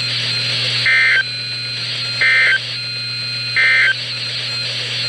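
EAS end-of-message code from a weather radio: three short, identical bursts of buzzy digital data tones about a second and a half apart, over steady radio hiss and hum. The bursts signal the end of the severe thunderstorm warning broadcast.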